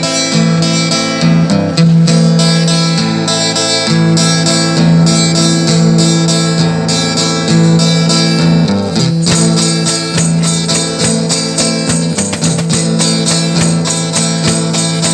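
Strummed guitar music with a steady rhythm, turning fuller and brighter about nine seconds in.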